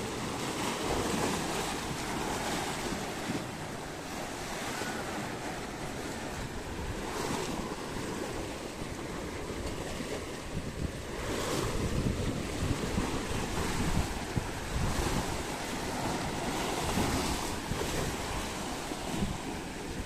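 Sea waves washing onto the shore, swelling and easing in surges, with wind buffeting the microphone.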